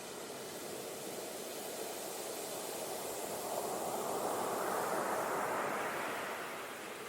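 Ocean surf: the wash of a wave building up, swelling to its loudest a few seconds in, then drawing back.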